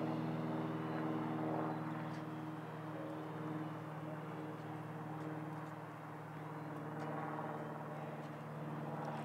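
Propellers and motors of a four-rotor tilt-motor model airplane buzzing in flight: a steady multi-tone drone that wavers slightly in loudness.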